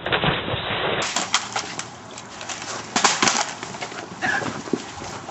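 Scuffling of two people wrestling on a concrete floor, with scattered knocks and thumps and rustling clothes.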